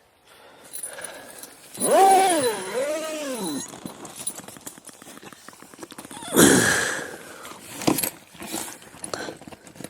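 An animal calling: a drawn-out call that rises and falls twice, about two seconds in, then a shorter falling call about six seconds in, with scattered clicks between.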